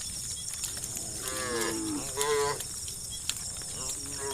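Cows mooing: two calls falling in pitch about a second and a half and two seconds in, and another starting near the end, over a steady high-pitched buzz.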